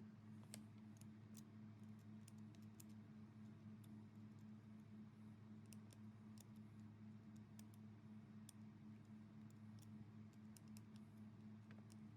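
Near silence: a faint steady low hum with scattered faint ticks and clicks.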